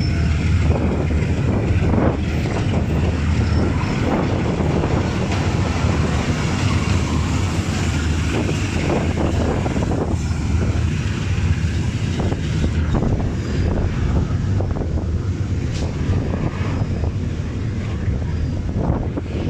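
Freight train of open-top wagons rolling past at close range: a steady rumble with clatter from the steel wheels on the rails, and wind buffeting the microphone.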